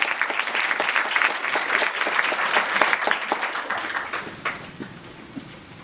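Audience applauding, the clapping thinning out and dying away about a second before the end.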